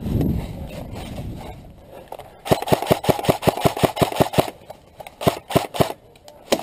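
Airsoft electric rifle firing close by: a dull thud at the start, then a rapid full-auto burst of about two seconds, followed by several single shots a fraction of a second apart.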